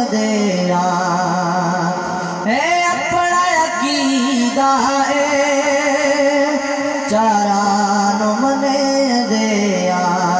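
A man singing a Punjabi naat into a microphone, holding long, wavering notes. The melody leaps up about two and a half seconds in and drops back about seven seconds in.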